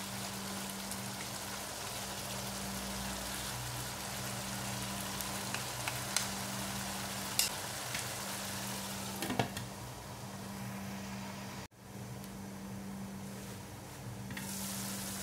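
Egg stew in tomato sauce simmering and sizzling in a wok over a low steady hum, with a few light taps of a wooden spatula in the first half. About three-quarters of the way in the sound cuts and resumes duller, the pan now under a glass lid.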